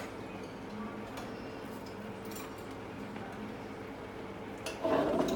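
Quiet kitchen room tone with a steady low hum and a few faint ticks and clinks. Near the end a louder handling or clatter sound starts.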